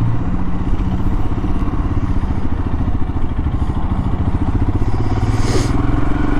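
Royal Enfield Himalayan's 411 cc air-cooled single-cylinder engine running on the move, its note shifting a little with the throttle. A brief hiss about five and a half seconds in.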